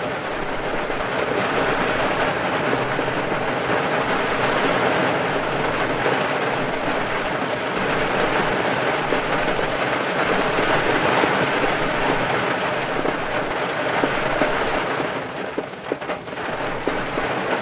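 Heavy rain drumming on a car's roof and windows, heard from inside the car: a steady dense patter that eases briefly near the end before returning.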